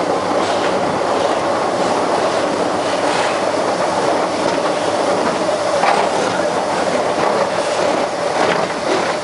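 Electric narrow-gauge rack railway train running, heard from aboard at the window: a steady rumble and rattle of wheels on track, with a faint steady whine and a few short clicks over the rails.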